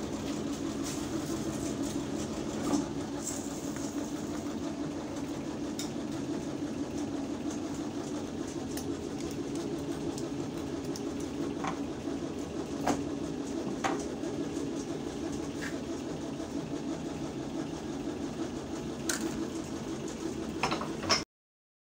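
Steady machine hum of a hand-operated plastic injection molding machine, with a few sharp metallic clicks and knocks as its steel mold is handled. The sound cuts off abruptly near the end.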